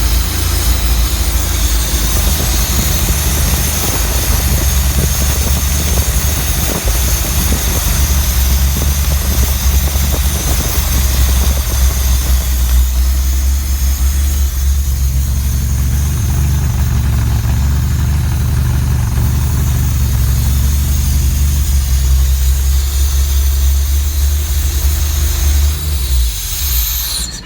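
Chrysler Slant 6 inline-six engine idling with a loud, steady vacuum-leak hiss over its low rumble; the leak's source is unknown. The sound stops abruptly near the end.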